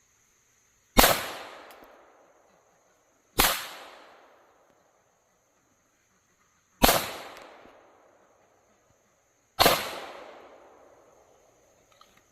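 Four shots from an FN 502 .22 LR pistol firing tracer rounds, spaced about two and a half to three and a half seconds apart, each trailing off in an echo lasting about a second.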